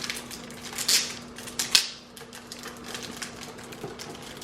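Chocolate bar wrappers crinkling and crackling as they are handled and torn open, with two louder rustling bursts about one and two seconds in.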